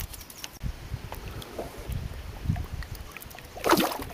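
Wind buffeting the microphone and light knocks and clicks of handling in an aluminium fishing boat, with a short, louder rushing burst near the end.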